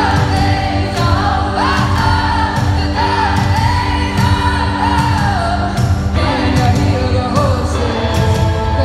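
A live band in an arena playing a pop-rock song through the PA, a woman singing the lead melody over a steady drum beat and sustained band backing, heard with the hall's echo from high in the stands.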